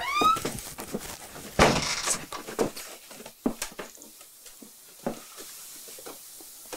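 A short rising squeak, then a run of scattered knocks and clatters, the loudest about a second and a half in.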